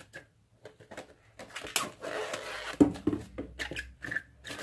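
Cling film crinkling and rustling as hands press and smooth it over a stainless steel bowl, with scattered light clicks and taps.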